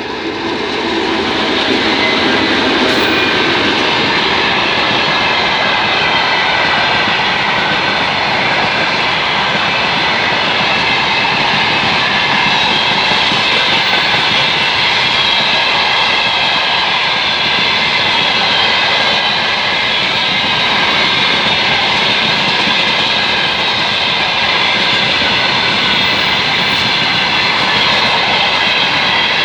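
Freight train hauled by a 2TE116 diesel locomotive passing close by: a loud, steady rolling noise that builds over the first two seconds and then holds.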